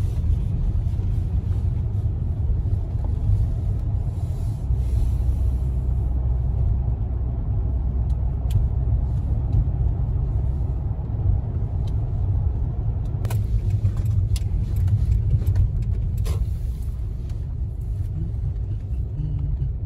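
Steady low rumble of a Toyota's engine and tyre road noise heard from inside the cabin while driving. A few light clicks come in the second half.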